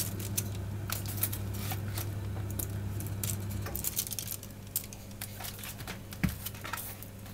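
Raw chicken wings being laid by hand onto a foil-lined baking tray: the aluminium foil crinkles, with irregular soft taps and clicks as the wet wings are set down.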